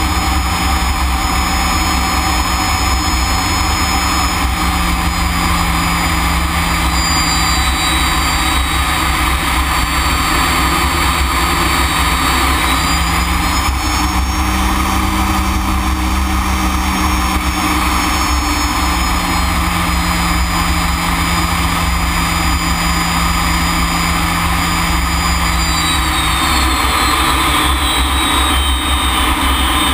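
BAC Strikemaster's single Rolls-Royce Viper turbojet heard from inside the cockpit, running steadily and loud, with high whining tones that drift in pitch around the middle and again near the end.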